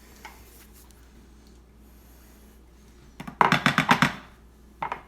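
Kitchen scraper knocking against a dish, a quick run of about eight sharp taps about three seconds in and a few more near the end, after a stretch of quiet scraping.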